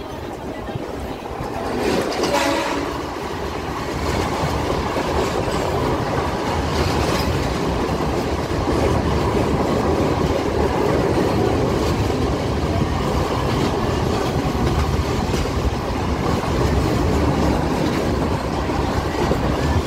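Running noise from on board a MEMU electric multiple-unit train: the wheels rumble steadily on the rails. It grows louder about two seconds in, then holds.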